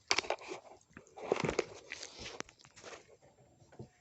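Channel-lock pliers clicking and scraping against the thermostat in a Land Rover 4.4 litre V8's housing as it is pressed down and twisted to get it out. The sound is a run of irregular sharp clicks and knocks.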